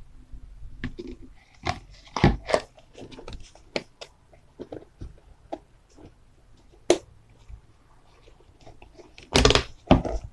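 Plastic lid being fitted and pressed down onto a plastic tub: scattered sharp clicks, knocks and crackles of plastic on plastic, loudest in a cluster near the end.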